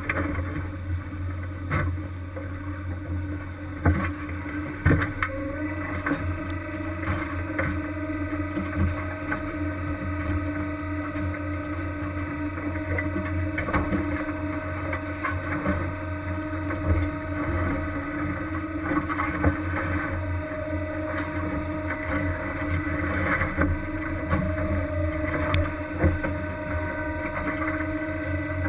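Steady drone of a fishing vessel's engine and machinery, holding one even pitch throughout, with scattered sharp knocks and clanks over it.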